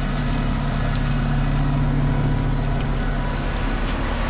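A heavy diesel engine running steadily with a low, even drone, under a constant hiss.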